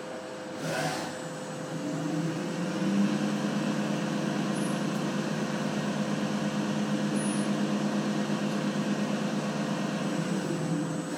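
CNC machine tool cutting metal: a steady spindle whine with a rougher cutting sound that builds about two seconds in and holds. A brief rush of noise sounds near the start.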